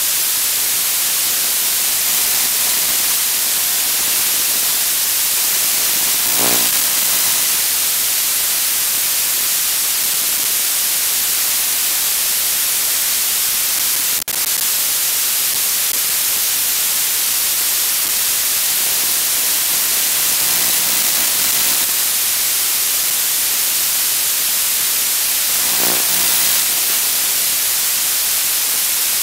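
Steady loud hiss of analog static from an FPV video receiver's audio channel. It dips sharply for an instant about fourteen seconds in, as the video signal breaks up, and a faint buzz comes through briefly twice.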